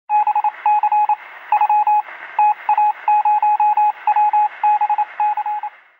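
Short electronic beeps at one steady pitch, in irregular groups of short and longer beeps like Morse code, over a steady hiss with a thin, radio-like sound.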